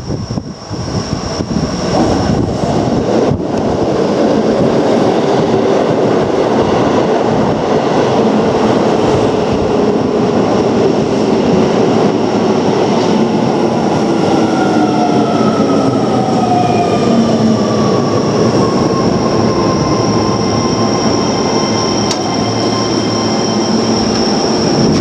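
Keio Line electric train running, loud and steady, with motor tones sliding down in pitch through the second half as the train slows.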